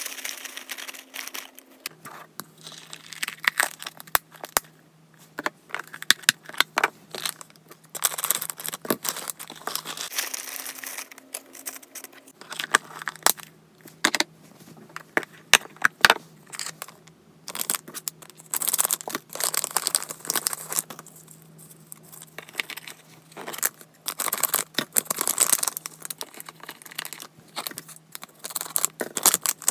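Crinkling, rustling and tearing of wrapping material in irregular bursts, with many small clicks and knocks.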